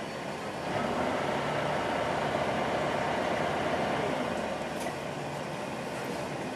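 Volvo B10M bus's underfloor six-cylinder diesel engine running at idle, heard from inside the passenger saloon. A louder spell of noise starts about a second in and fades out about four seconds in.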